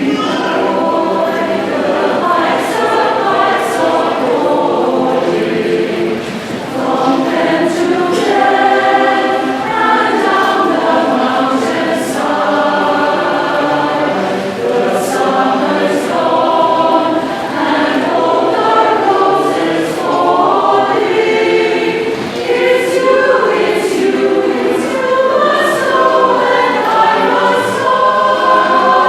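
A choir singing, with several voices holding chords together at a steady level.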